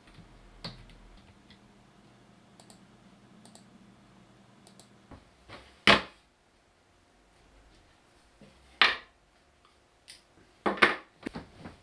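Small objects set down one by one on a wooden tabletop: a smartphone laid down with a sharp knock about halfway through, a metal ring a few seconds later, and a quick cluster of clatters near the end as a pair of glasses is put down. A few faint computer-keyboard clicks come before them.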